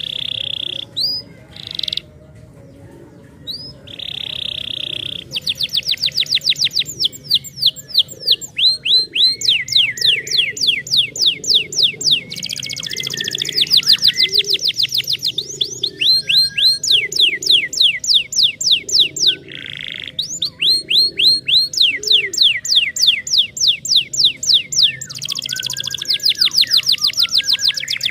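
Domestic canary singing: long runs of quick rising chirps repeated several times a second, broken now and then by short buzzing trills.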